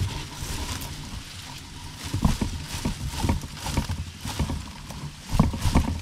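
Irregular knocks and rustling of stiff dry leaves as a greater coucal pushes into a bulbul nest and seizes a nestling, over a low rumble. The knocks come in quick clusters from about two seconds in.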